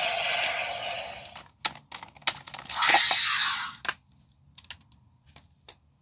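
Seiken Swordriver toy belt's electronic sound effect dying away about a second and a half in. Then come sharp plastic clicks and handling of the toy, with a short noisy burst about three seconds in.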